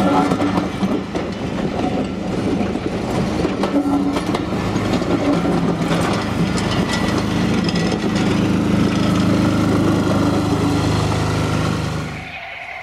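Passenger coaches of a steam-hauled train rolling past close by: a steady rumble of wheels on rails with repeated clicks as the wheels cross rail joints. The sound drops away sharply near the end.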